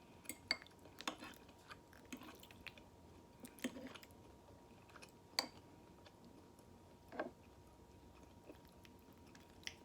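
A person chewing food close to the microphone: quiet, with scattered short mouth clicks and smacks.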